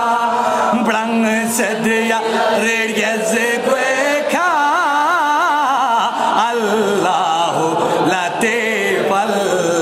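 A man's solo voice chanting a manqabat, a devotional poem of praise, with no instruments, amplified through a microphone. From about four seconds in he holds long notes with a wide, wavering ornamentation.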